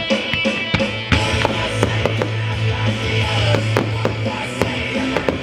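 Loud rock music with guitar and drums, a held low bass note coming in about a second in, with sharp pops and bangs of show fireworks firing mixed through it.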